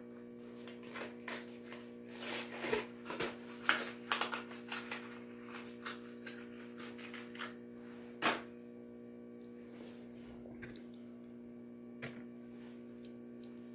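Plastic blister packaging crackling and clicking as a diecast toy car's package is torn open, busiest over the first eight seconds or so, then only a few light clicks. A steady electrical hum runs underneath.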